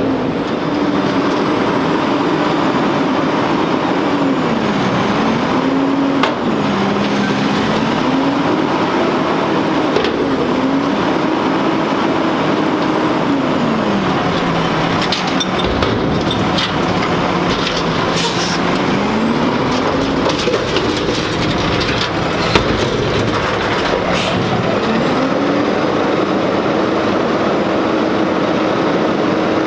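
Front-loader garbage truck's diesel engine revving up and down several times as its hydraulics lift the carry can over the cab and lower it again, with hydraulic whine and occasional metal clanks.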